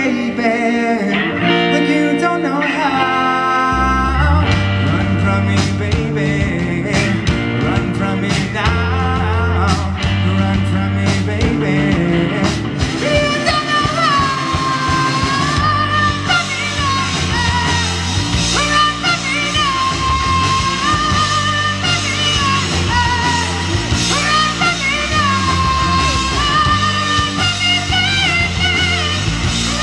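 Live rock band playing: a male singer over electric guitar, bass and drum kit. The bass and drums come in about four seconds in, and in the second half the singer holds long, wavering notes.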